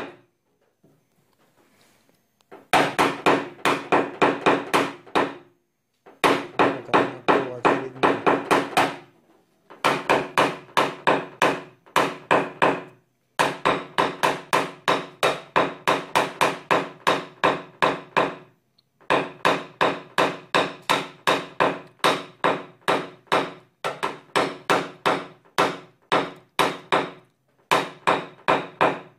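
Small hammer tapping a knockdown punch against a Toyota Camry's thin steel trunk lid in quick runs of about four taps a second, broken by short pauses, with a ringing note under the taps. It is the tapping-down stage of paintless dent repair on hail damage.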